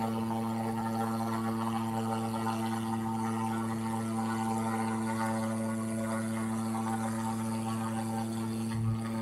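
A steady, unchanging droning hum made of one low pitch with evenly spaced overtones.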